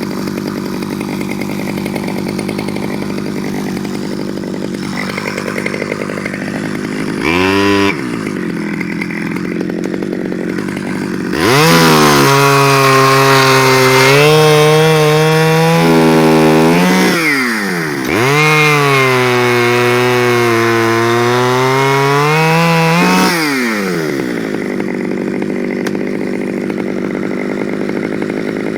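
Stihl 009L two-stroke chainsaw idling, given a short blip of throttle about seven seconds in, then run at high revs twice for about five seconds each, its pitch wavering, before dropping back to idle.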